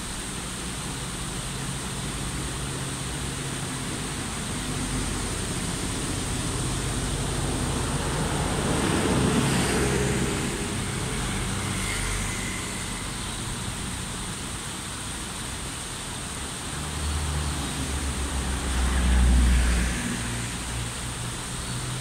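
Water of a small stream spilling over a low rock step with a steady rush. Road traffic passes as well, swelling about nine seconds in and again with a low rumble near the end, which is the loudest part.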